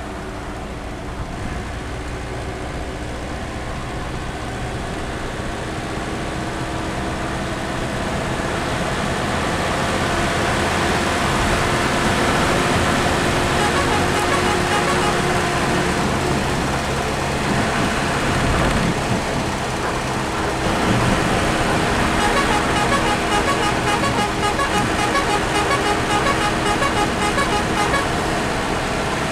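Truck engine running with road noise inside a moving cab, louder in the second half, with a horn sounding in long steady blasts. Near the end a horn plays a rapid run of short repeated notes.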